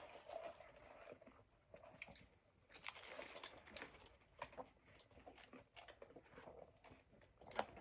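Faint chewing and crunching of fast food, with scattered small mouth clicks.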